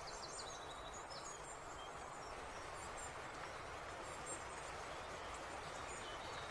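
Woodland ambience: a faint steady hiss with small birds chirping high, a quick run of notes at the start and scattered chirps after.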